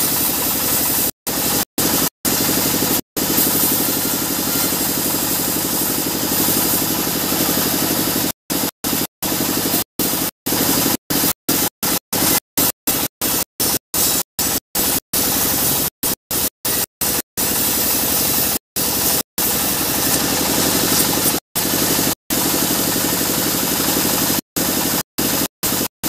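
Sawmill band saw running and ripping lengthwise through a mahogany slab: a steady machine noise, broken again and again by brief gaps where the sound cuts out completely.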